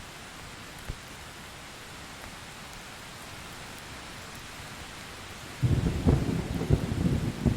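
Steady rain falling, with a few single drops standing out. About five and a half seconds in, thunder breaks in suddenly and loudly, a low crackling rumble that becomes the loudest sound.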